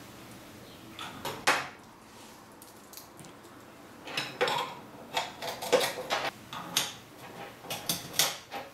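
Metal clinks and clicks as aluminium rail-support brackets are handled and slid onto the ends of steel support rods, parts knocking against each other. There are a couple of clinks about a second in and a busy run of them from about four seconds on.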